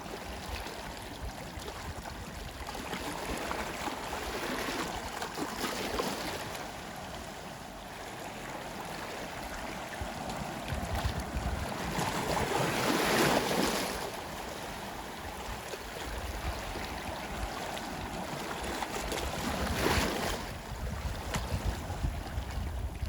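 Sea waves washing onto a shore. The wash swells to its loudest about halfway through and again near the end.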